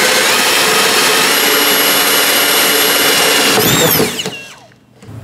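Cordless drill spinning a hole saw through the plastic wall of a toolbox: a steady motor whine with cutting noise. At about four seconds the trigger is released and the whine falls away as the drill winds down.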